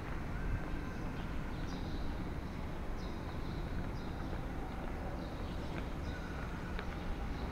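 Strong wind buffeting the camera microphone, a steady low rumble, with faint short high chirps recurring every second or so.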